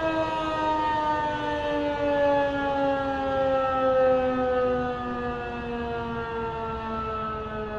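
Federal Signal 2001-SRN electromechanical outdoor warning siren, rotating at 8 rpm, sounding a single siren tone. Its pitch slides slowly and steadily down as it winds down, and it grows a little quieter after about five seconds.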